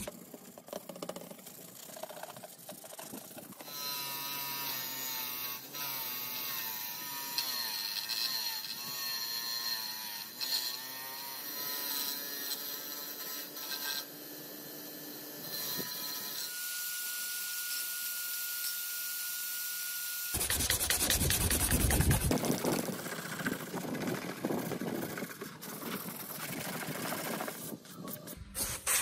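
Bench grinder with a wire wheel running while a tool is pressed against it, its motor whine wavering in pitch under the load, then settling to one steady tone, followed by a brief loud rush of noise. Near the end, sandpaper rubbing by hand over filler on a plastic motorbike fuel tank.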